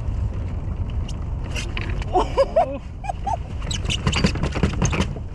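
Wind rumbling on the microphone, with a few short, high vocal sounds about two seconds in and a quick run of sharp clicks and knocks about four seconds in, as a fish is reeled up to the kayak and the landing net is readied.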